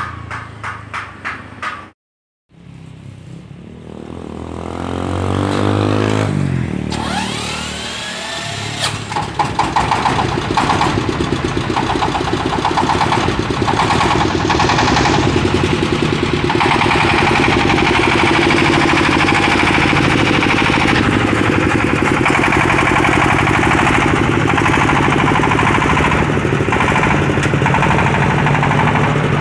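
Engine of a homemade 4x4 plantation hauler: an even chugging beat at first, then after a brief cut it climbs in revs and settles into steady loud running as the truck drives.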